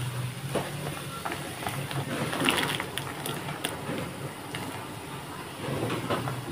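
Water boiling in an aluminium pot on a stove: a steady low rumble with small irregular clicks from the bubbling. About two and a half seconds in, cut long beans are tipped into the boiling water, with a short run of knocks and splashing.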